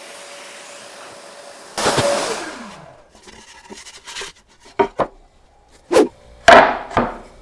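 A loud swish about two seconds in, falling in pitch, then a series of sharp knocks, the loudest about six and a half seconds in.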